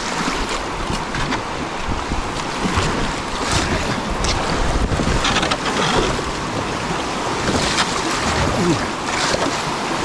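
Shallow river rapids rushing around a kayak, with repeated splashes of the paddle blades and wind buffeting the microphone.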